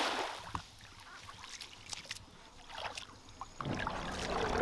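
Water splashing and lapping, with scattered small knocks. A louder, fuller rush of noise with a low hum comes in about three and a half seconds in.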